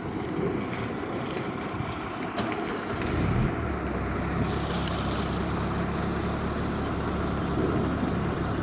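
A motor vehicle engine idling, a steady low hum that sets in about three seconds in. Before it there is an irregular low rumble.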